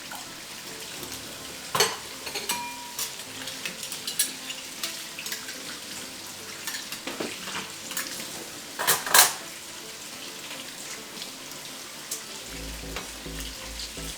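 Food sizzling in a pan, with scattered clinks and clanks of dishes and utensils; the loudest is a clatter about nine seconds in.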